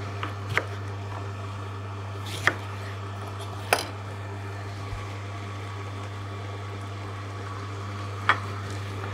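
Angel 8500 stainless-steel twin-gear slow juicer's motor humming steadily at low volume, with a few scattered sharp knocks of a knife on a wooden cutting board.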